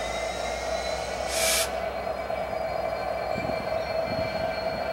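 Norfolk Southern GP33ECO diesel locomotive running light and rolling slowly, with a steady engine drone and a steady whine. A short hiss breaks in about a second and a half in.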